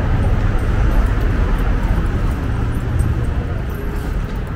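Steady low rumble of city street ambience, mostly traffic noise.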